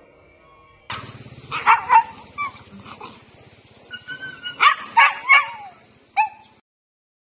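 Street dogs squaring off, giving a run of short, sharp barks and yelps with a brief high whine in the middle. The loudest cluster of barks comes near five seconds, and the sound cuts off suddenly just before the end.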